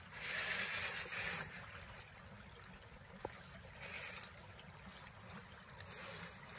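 Creek water running over stones, with bursts of noise from an RC rock crawler truck's electric motor and tires working over the rocks. The loudest burst comes in the first second and a half, with shorter ones about four and five seconds in.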